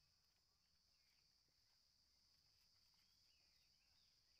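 Near silence, with a faint, steady high-pitched insect chorus.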